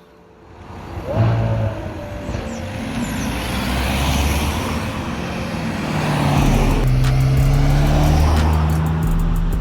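Supercar engine running and growing louder from about a second in, with a steady deep engine note through the last few seconds.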